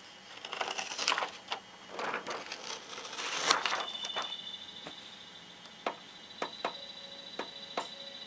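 Protective plastic film being peeled off an LCD screen, rustling and crackling in several swishes over the first few seconds. Then a series of sharp clicks as the buttons on top of the TV are pressed, over a faint steady high-pitched tone.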